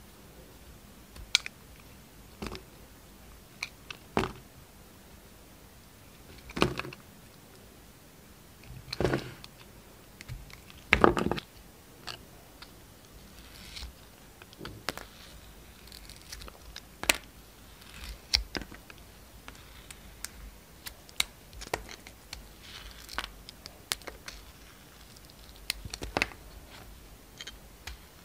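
Utility knife blade cutting and scraping slices off bars of soap: irregular crisp scrapes and crunches with quiet gaps between the strokes, the loudest cluster about eleven seconds in.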